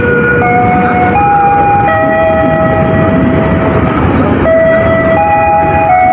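A slow melody of long held notes, changing pitch every second or so, over the steady rushing noise of a commuter train pulling into the station.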